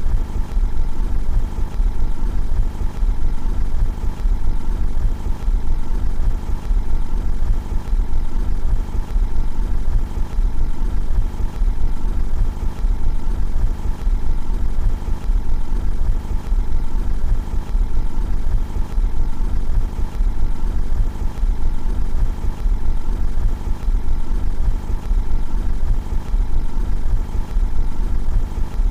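Car engine idling steadily, heard from outside the car.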